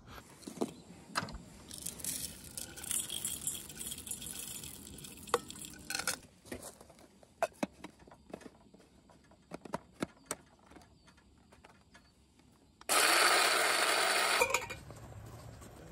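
Scattered light clicks, taps and clinks of small hard objects being handled, then a loud rush of hissing noise lasting about a second and a half near the end.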